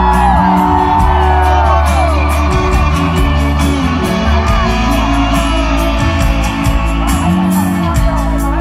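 Background music: a song with singing over a steady bass line.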